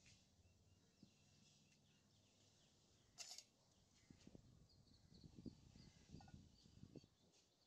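Quiet outdoor ambience with a small bird chirping in a quick series of short high notes. A brief clatter comes a little past three seconds in, followed by soft handling sounds as the lid of a cast iron Dutch oven is gripped and lifted off.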